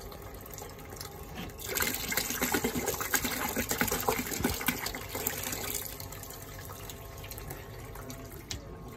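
Liquid descaling chemical poured from a plastic bottle into a bucket of circulating water, splashing and glugging louder for a few seconds from about a second and a half in. Underneath, water streams steadily into the bucket from the engine's cooling-water return hose as the bilge pump circulates it.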